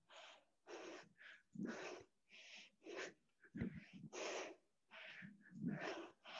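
A woman breathing hard and fast, a string of short breaths in and out, one or two a second, from the effort of repeated one-arm dumbbell snatches.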